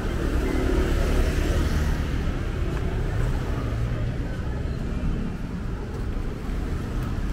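Busy street traffic: the engines of passing motor vehicles make a steady low rumble that swells a little in the first couple of seconds.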